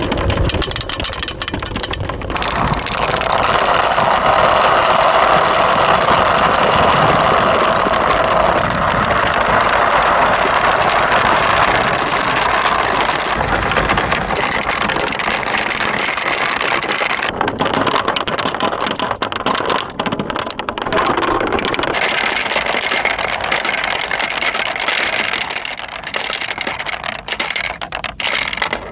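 A stream of small plastic balls rolling and rattling down plastic rain gutters, a corrugated tube and a corrugated sheet: a dense, continuous rumble full of quick clicks as the balls knock against the runs and each other. The sound changes abruptly a few times as the balls move onto a different section.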